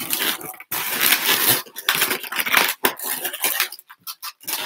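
Latex modelling balloons squeaking and rubbing against one another in irregular stretches as they are handled and twisted together.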